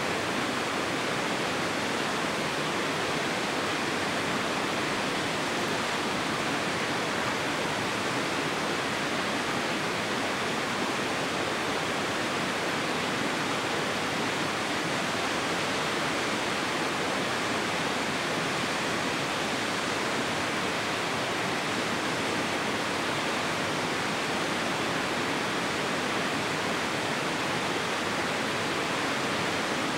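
Rushing water of a mountain headwater stream: a constant, even hiss with no change in level.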